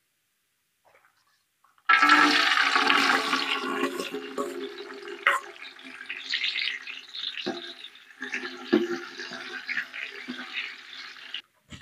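Cashew nuts dropped into hot cooking oil in a large aluminium pot, frying with a loud sizzle that starts suddenly about two seconds in and slowly eases, with a few knocks of the metal ladle stirring them against the pot. The sizzle cuts off suddenly near the end.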